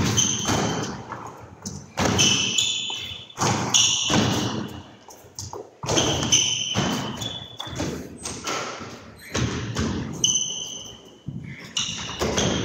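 Sports shoes squeaking and feet thudding on a wooden squash court floor as players lunge and change direction in a court-movement fitness drill. Short high squeaks and thuds come every second or two.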